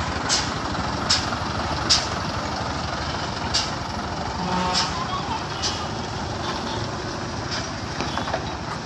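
Diesel engine of a heavy crane tow truck running as it pulls slowly past and away, with a series of short sharp clicks or puffs on top, several in the first couple of seconds and fewer later.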